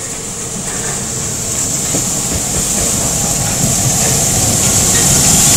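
Harz narrow-gauge steam tank locomotive 99 7243-1, a 2-10-2T of class 99.23–24, running in along the platform, its steam hiss and rumble growing steadily louder as it draws near.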